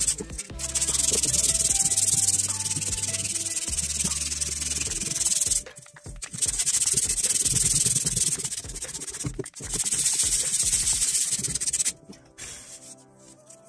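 Sandpaper rubbed by hand over the wooden planking of a model ship's hull, a scratchy hiss in three long spells with short pauses between, stopping about twelve seconds in. Quiet background music with low bass notes runs underneath.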